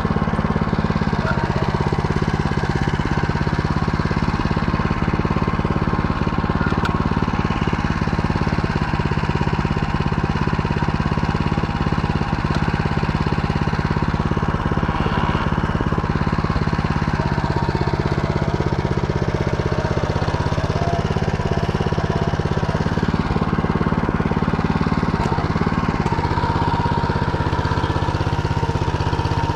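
Motor Sich walk-behind tractor engine running steadily while it pulls a reversible plow through the soil.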